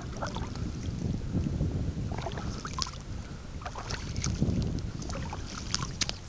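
Wind buffeting the microphone in low, uneven gusts, with small splashes and trickles of shallow water scattered through it.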